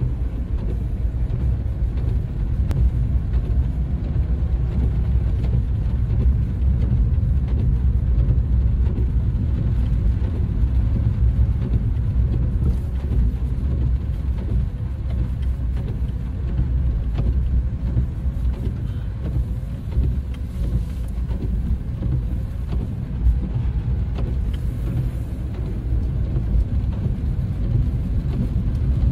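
Steady low rumble of a car's engine and tyres, heard from inside the cabin as it rolls slowly over wet pavement.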